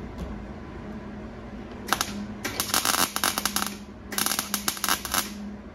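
MIG welder tack-welding thin sheet-metal hood panels: two bursts of rapid crackling, the first about two seconds in and the second about four seconds in, each lasting a second or two, over a steady low hum.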